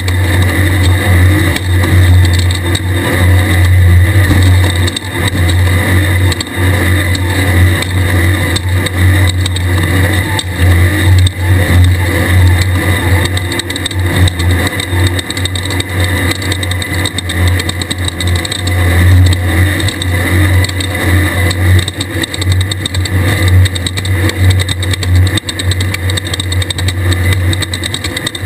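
A 1600-class desert race buggy's engine running hard, swelling and easing with the throttle every few seconds, under a steady rush of noise from the buggy moving at speed.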